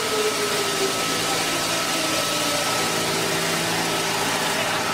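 Log rounding machine running as its rotating cutter head shapes a passing log and blows the chips out through its chute: a steady loud hiss with a held whine, one tone sliding slightly lower in the first second.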